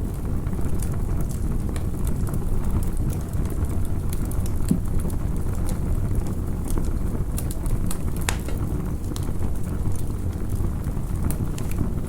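Campfire burning with a steady low rumble and scattered sharp crackles and pops.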